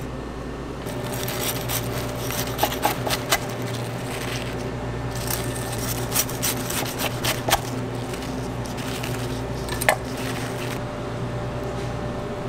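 Knife cutting through the crisp breaded crust of a deep-fried cheese pork cutlet on a wooden cutting board: runs of crackly crunches, then a sharp knock about ten seconds in.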